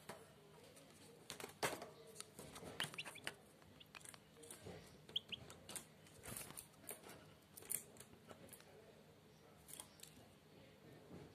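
Faint, short high cheeps of newly hatched finch nestlings begging in the nest, mixed with scattered soft clicks and rustles.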